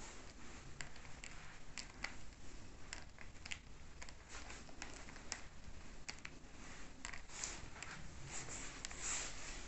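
Light footsteps on a wooden floor as someone walks through the rooms: soft, irregular clicks about twice a second over a faint room hiss.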